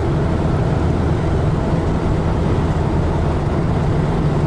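Steady road noise inside a moving VW campervan's cab: a constant low engine and tyre drone with a hiss of wind and road over it.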